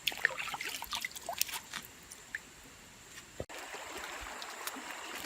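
Water trickling and dripping, with small scattered clicks, for about three and a half seconds. After a sudden break, a stream's steady rushing takes over.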